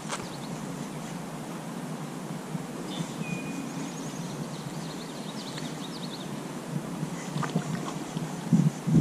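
Quiet outdoor ambience on a still pond, with faint bird chirps and one short thin whistle a few seconds in, and a few soft clicks near the end.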